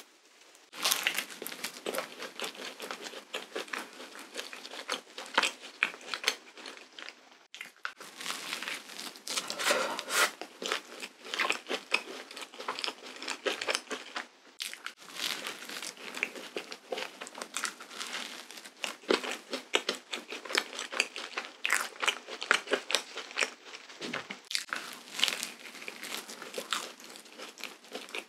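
Close-miked eating sounds from biting and chewing cream-filled waffles: dense crunching and crackling, with two short pauses.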